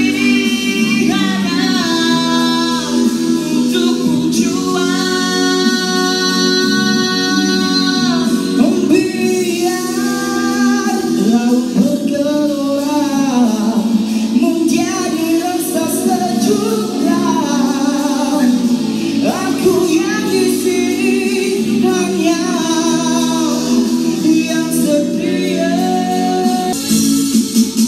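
Amplified male singing of a Malay pop song into handheld microphones over a karaoke-style backing track played through a PA system, with long held notes.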